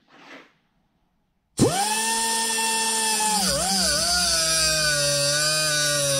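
Small hand-held cutoff tool with a thin abrasive disc starts up sharply about a second and a half in, running with a high whine and hiss. About two seconds later its pitch sags and wavers as the disc bites into the protruding pin on a motorcycle shift shaft, then stays lower under load while cutting.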